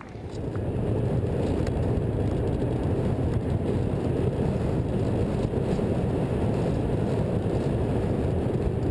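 Steady rush of wind and engine drone from a radio-controlled model airplane in flight, heard through a camera mounted on its wing. It builds up within the first second, then holds even.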